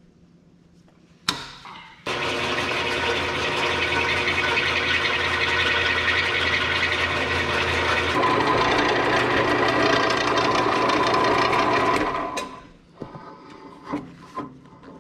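Drill press motor starting with a sharp click and running steadily as a large reamer turns in a hole in a steel planter row-unit plate, lubricated with cutting oil; its tone shifts partway through as the cut goes on. It stops about ten seconds after starting, followed by light metal clatter as the part is handled.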